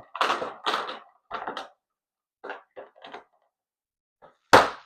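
A box and its packaging being handled: a run of short rustles and scrapes, then one sharp knock near the end.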